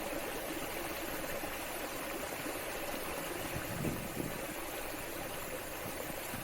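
Waterfall running steadily, an even rush of falling water.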